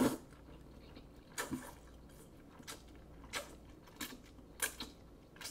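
A person slurping and chewing noodles: soft, wet mouth smacks and slurps, a few short ones spaced irregularly through the few seconds.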